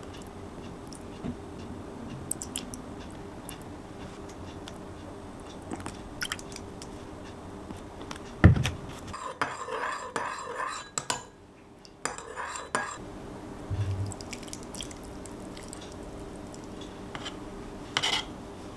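Metal spoon clinking and tapping against a small ceramic bowl while soy-sauce dressing is measured in and stirred. There is one loud knock about eight seconds in, then a few seconds of quick clinking as the sauce is stirred, and scattered light taps.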